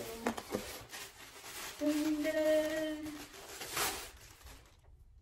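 A plastic bag rustling and crinkling as a sneaker is pulled out of it. Partway through, a woman's voice holds a single note for about a second.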